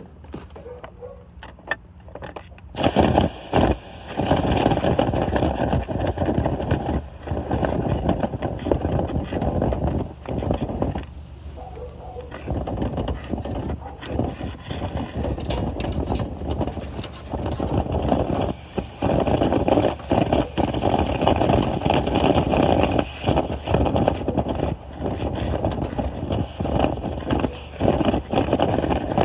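A motor starts about three seconds in and runs loudly with a rushing noise, cutting out briefly several times.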